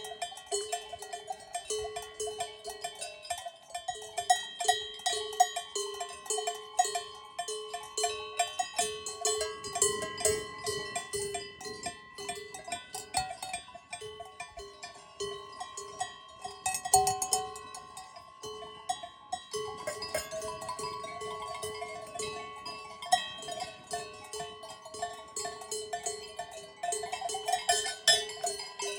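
Many cowbells on grazing cows ringing and clanking irregularly, several bells at different pitches overlapping, struck a few times a second as the animals move and graze.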